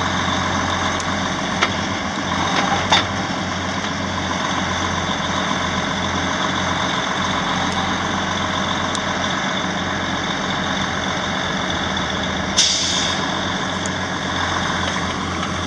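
Log truck's diesel engine running steadily while the truck is unloaded, with a few light knocks about two to three seconds in and a short hiss of air near the end.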